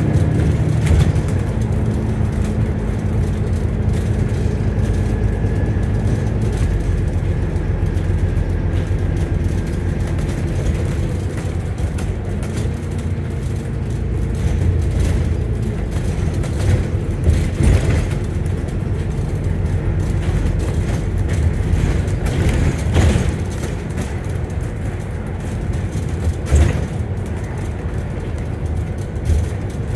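Interior of an Alexander Dennis Enviro400 MMC double-decker bus on the move: steady engine and road rumble, with a faint whine for the first several seconds. A few sharp knocks and rattles of the body come in the second half.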